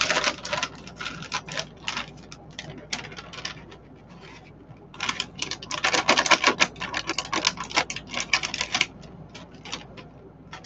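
Plastic bag of shredded cheese crinkling and rustling as it is handled and shaken out over a mixing bowl. It comes in two spells of rapid crackling, the longer and louder one from about five to nine seconds in.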